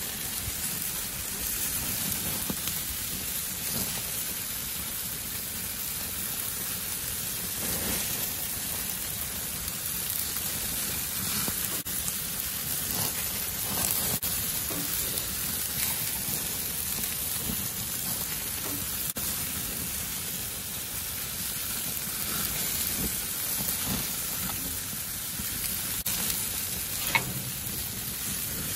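Sauce-glazed pork spare ribs and chicken drumsticks sizzling on a gas grill over open flame, with scattered small pops and crackles and one sharper crack near the end.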